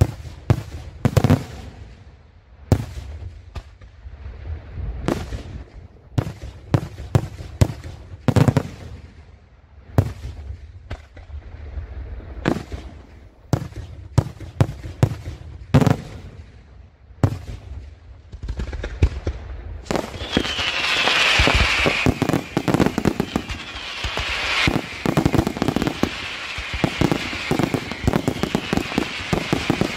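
Daytime aerial fireworks: shells bursting with sharp bangs at irregular intervals. About two-thirds of the way in, this turns into a dense barrage of rapid crackling with a high hiss.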